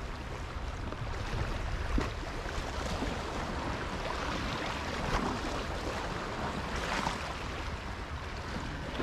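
Sea water washing and splashing against the rocks at the water's edge, a steady rushing with a couple of faint knocks.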